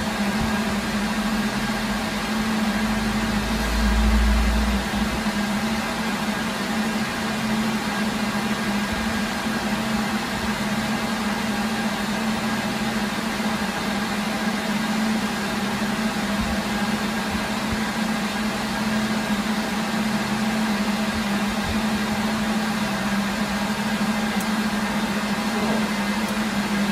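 Cooling fans of rack-mounted network switches and servers running steadily: a constant whir with a strong low hum. A brief low rumble comes about three seconds in.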